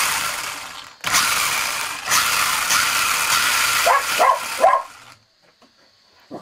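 Rlaarlo 1/14 buggy's 2847 3200kV brushless motor and drivetrain revved hard with the wheels spinning free: a high-speed whir that winds down about a second in, then a second run of about four seconds that cuts off suddenly. About four seconds in, a dog gives three short barks over it.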